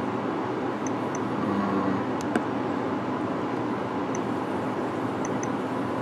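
Steady rush of a forced-air HVAC blower fan running, with a few faint clicks from a Nest Learning Thermostat (3rd gen) as its ring is turned and pressed through the menus.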